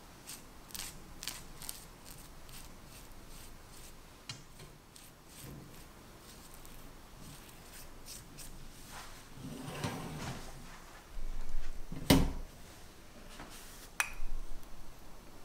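Pastry brush dabbing egg wash onto a baked tart shell, a series of short, soft strokes in the first few seconds. About twelve seconds in there is a single sharp knock, the loudest sound, and a click about two seconds later.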